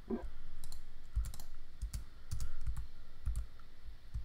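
Computer keyboard keys and mouse buttons being pressed: a dozen or so short, irregular clicks and taps.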